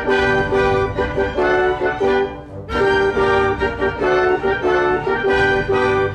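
String orchestra playing a passage together, with bowed notes in short phrases and a brief break about two and a half seconds in.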